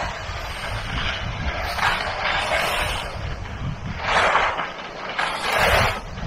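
Skis scraping and hissing over hard, icy snow on a downhill run. The sound swells and fades with each turn and is loudest twice in the second half.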